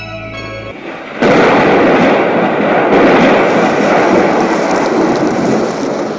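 Soft keyboard-like music notes stop in the first second. Then a stormy sea sound effect comes in suddenly and loudly about a second in, as a crash that settles into a steady roar of rushing water, easing slightly near the end.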